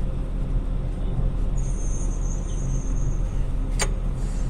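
A motor or engine running steadily in the background with a low, regular throb, joined midway by a faint high whine; a single sharp click about four seconds in.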